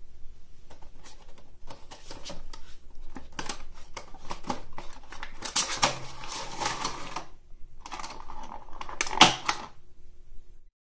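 A Funko Pop cardboard window box and its clear plastic insert being opened by hand: a run of small clicks and crinkles. A longer rustle comes about six seconds in, and a louder plastic crackle just after nine seconds.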